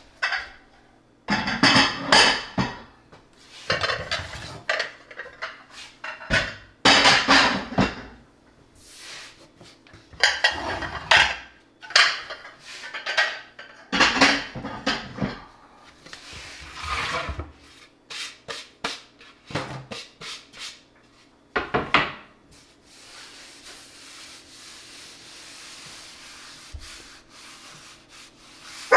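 Dinner plates clattering and clinking as they are lifted and set down in a series of handling bursts, with a wooden cutting board knocking and scraping on a laminate countertop. Near the end, a faint steady rubbing of hands over the laminate surface.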